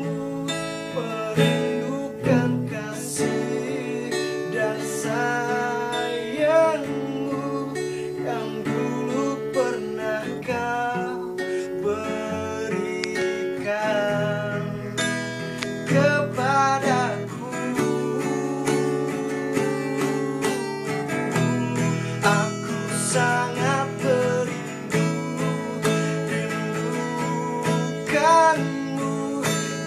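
Acoustic guitar strummed in steady chords, with a man's voice singing a melody over it.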